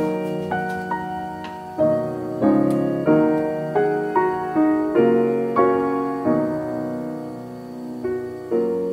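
Background piano music: single notes and chords struck at an unhurried pace, each ringing and fading before the next.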